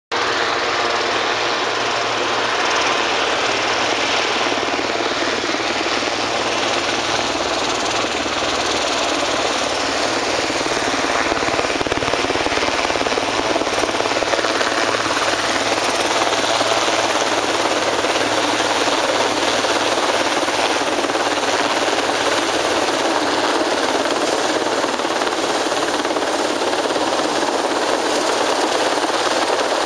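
Large helicopter flying low overhead: steady rotor and turbine noise, growing a little louder as it comes closer.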